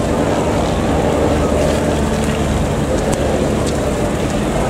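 Piston engines of WWI-replica propeller aircraft, among them a Fokker Dr.I-style triplane, droning steadily overhead.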